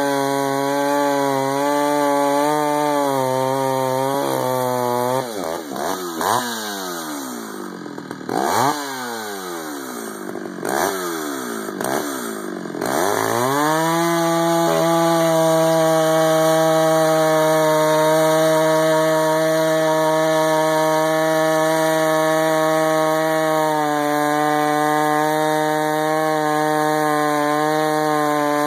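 Ported Homelite 8800/540 hybrid two-stroke chainsaw cutting through a large log at full throttle. About five seconds in the throttle comes off and the revs fall and rise several times. Near the middle it goes back to a steady high-revving note in the cut.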